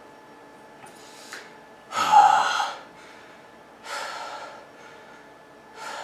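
A man gasping and breathing heavily, out of breath after an exhausting set of push-ups. There are three loud gasping breaths, the loudest about two seconds in with a falling groan of voice in it.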